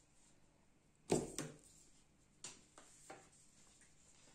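Knocks and clicks of a wooden embroidery floor frame being handled and adjusted: a sharp knock about a second in, a second knock just after, then a few lighter clicks.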